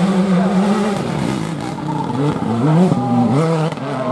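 Rally car engine running hard at high revs. About halfway in, the pitch drops and then climbs twice in quick succession as the car accelerates through the gears.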